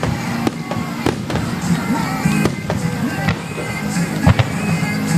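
Fireworks show finale: aerial shells bursting in quick succession, with whistling glides among the bangs, over music played for the show.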